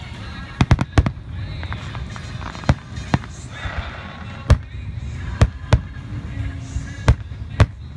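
Aerial fireworks shells bursting: about a dozen sharp bangs, a quick cluster of four or five about a second in, then single reports every second or so, over a steady low rumble.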